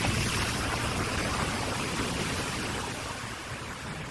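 A car driving through standing water on a flooded street, its tyres swishing through the water; loudest in the first second or so, then fading as it moves away.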